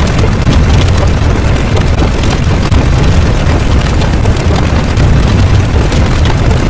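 A loud, continuous deep rumble with scattered crackles, like a sustained explosion or eruption sound effect.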